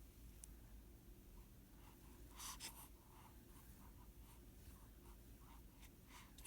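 Faint little breath sounds of a swaddled baby: a snuffly breath about two and a half seconds in, then a run of small quick breaths, and another breath near the end.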